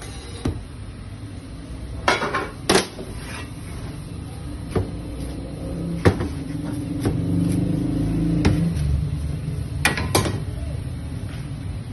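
Metal pizza pan and utensils clanking and knocking on a stainless steel counter as a pizza is slid out of its pan onto a board and cut, a handful of sharp knocks over a steady low hum that swells in the middle.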